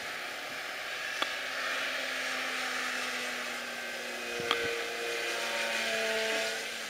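Electric motor and propeller of a Yak 54 RC aerobatic plane buzzing overhead in flight, the pitch shifting and the sound swelling and easing as the throttle and distance change. The motor and prop sound well matched to the watchers.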